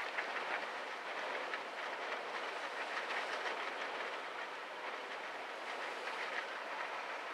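Steady rushing noise of wind and choppy water, with faint irregular ticks.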